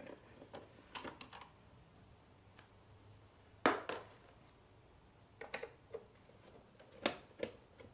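Scattered light clicks and taps of hand work on a car's side-mirror assembly: a screwdriver turning out small screws and plastic and metal parts being handled. The sharpest click comes about a third of the way in, with smaller ones about a second in and near the end.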